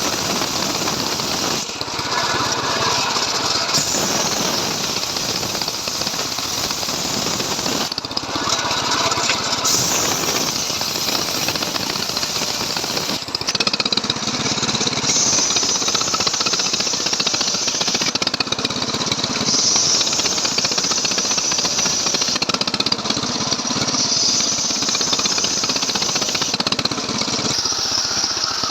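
Stihl MS 381 two-stroke chainsaw running continuously under load while ripping a log lengthwise. Its pitch shifts every few seconds as the cutting load changes.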